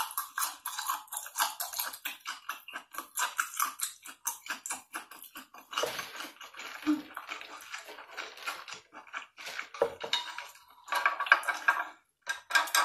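Close-miked mukbang eating sounds: rapid, dense chewing and crunching clicks and smacks.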